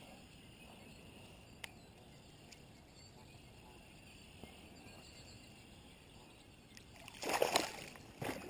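Faint water noise around a kayak, then near the end two short splashes as a hooked northern pike thrashes at the surface beside the boat.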